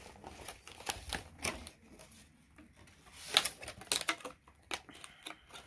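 LOL Surprise toy packaging being handled by hand: scattered light clicks and rustles, with a cluster of sharper crackles about three to four seconds in.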